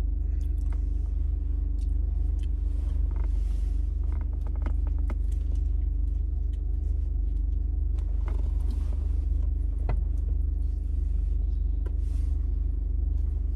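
Steady low rumble of a car idling, heard from inside the cabin, with a few steady tones over it. Scattered soft clicks and mouth sounds come from someone chewing a sandwich.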